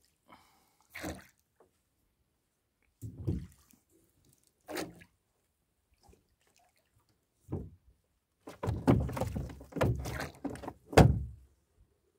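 Hollow knocks and thumps on a small boat's hull as a gill net is hauled in over the side. They come a few seconds apart at first, then in a busier run over the last few seconds, the loudest near the end.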